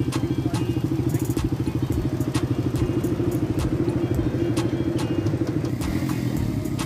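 Motorcycle engine running steadily with a fast, even firing pulse, with scattered sharp clicks over it.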